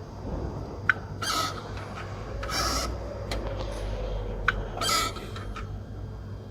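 Lada Vesta AMT clutch actuator squeaking three times, each squeak short, with sharp clicks in between. The squeak is the actuator fault being checked.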